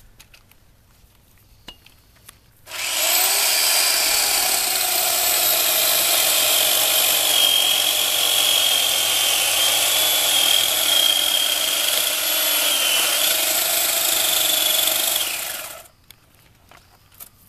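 A 960-watt electric chainsaw starts about three seconds in and runs steadily for about thirteen seconds while cutting through a tree limb, a steady high motor whine with the chain sawing through wood, then stops suddenly.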